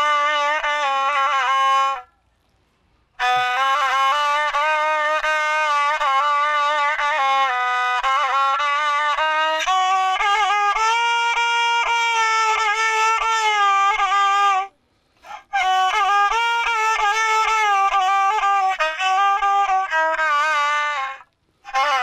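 Egyptian rababa (spike fiddle) bowed, playing a sad melody of held, wavering notes with small ornaments. The playing breaks off briefly three times: about two seconds in, past the middle, and near the end.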